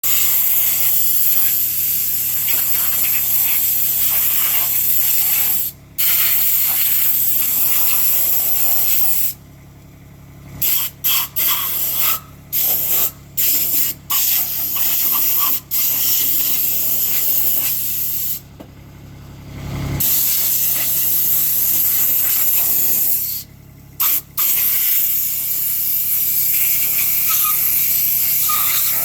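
Water spraying hard in a steady jet for cleaning a lawnmower. It is cut off and released again several times, with a quick series of short bursts in the middle. A low steady hum runs underneath.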